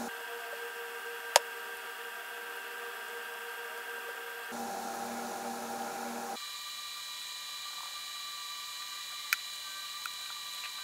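Steady electrical hum made of several fixed tones, which changes abruptly a few times, with two sharp clicks, one about a second in and one near the end.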